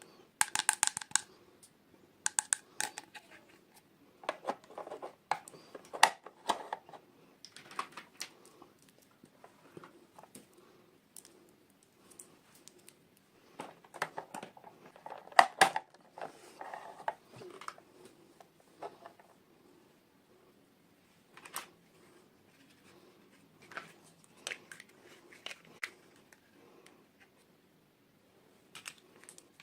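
Scissors snipping through toy packaging, in short runs of quick clicks, with intermittent taps and rustles of the packaging being handled.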